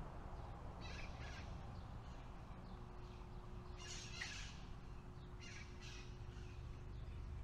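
Crow cawing in three short pairs of harsh calls, over a low steady background rumble.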